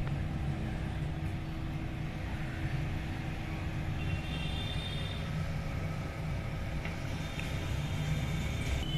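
Steady low rumble of background noise with a faint steady hum, and a few faint high chirps about four seconds in.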